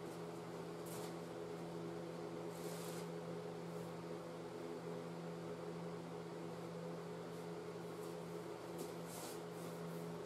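Steady hum of a running machine, such as a fan or motor, under a few brief soft swishes of a tack cloth wiped over a plastic bumper cover.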